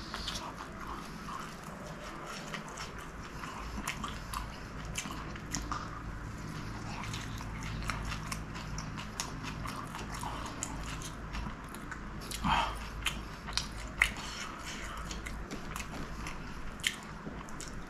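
Close-miked chewing and biting of a fried chicken samosa: wet mouth sounds and crackles of the pastry, with a few sharper, louder clicks about two thirds of the way through.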